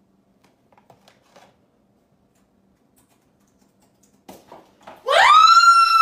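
Faint clicks of typing on a laptop keyboard, then about five seconds in a woman's loud scream of fright that rises sharply in pitch and holds high.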